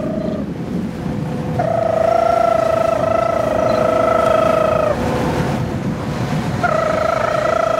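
Ship running through the sea, a steady low rush of engine, wind and water, over which two long high tones with a slight wobble are each held for a few seconds.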